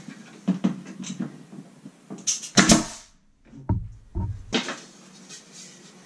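Wooden trim being handled and knocked against a wall panel, with light taps early on. A little over two seconds in come two loud, sharp snaps, followed by a few low thuds.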